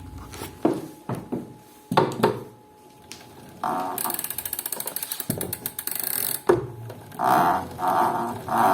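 Tacx Flux 2 smart bike trainer making a strange mechanical noise. First come a few scattered knocks, then fast, even, ratchet-like clicking with a high hiss, and near the end a rhythmic rasping pulse that repeats about one and a half times a second.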